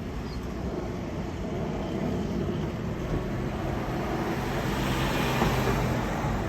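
Aeroplane passing overhead: a steady engine rumble that swells slightly about five seconds in.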